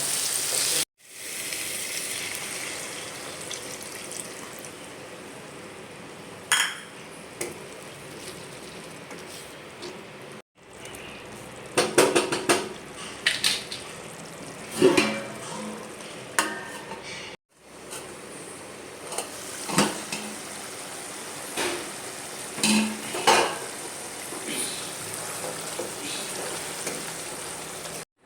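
Food sizzling as it fries in a pan, with a spoon clinking and scraping against the pot as it is stirred. The sizzle breaks off abruptly a few times, like separate clips joined together.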